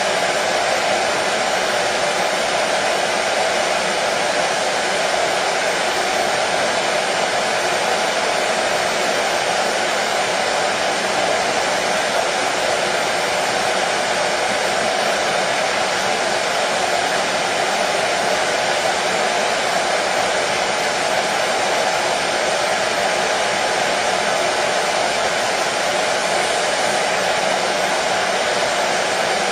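Hair dryer running steadily, a constant airy whoosh with no change in pitch or level, used as white noise to settle a colicky baby to sleep.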